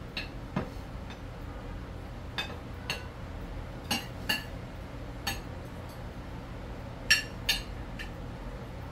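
A metal spoon clinking against plates and the pot as rice is dished out: about nine short, scattered clinks, the loudest two close together near the end.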